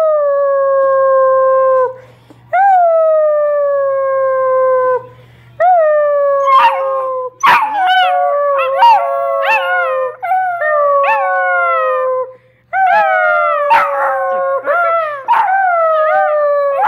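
Basset hound puppies howling along with a person: long drawn-out howls that swoop up and slowly sink. From about six seconds in, several voices overlap with short rising yips.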